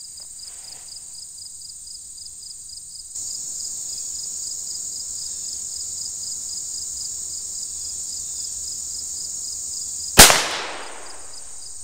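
A single shot from a Ruger Standard .22 LR pistol about ten seconds in: one sharp crack with a short echoing tail. Steady high insect chirping runs underneath.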